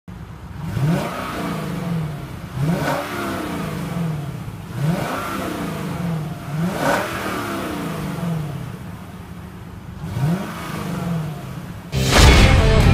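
Exhaust of a 2014 Lexus LS460's 4.6-litre V8, revved five times from idle: each blip climbs quickly and falls back slowly. Loud guitar music comes in just before the end.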